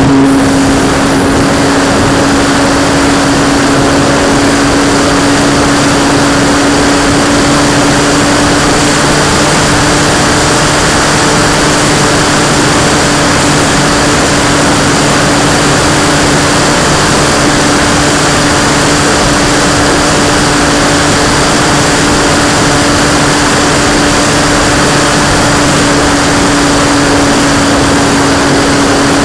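Radio-controlled P-51 Mustang model's motor and propeller running at steady high throttle in flight, heard close up from an onboard camera: a loud, steady drone of constant pitch with wind rush.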